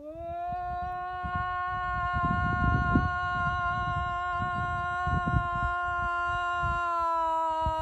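A woman's voice toning one long held note for sound healing, sliding up into it at the start, holding steady and dipping slightly near the end. Wind buffets the microphone with a low irregular rumble underneath.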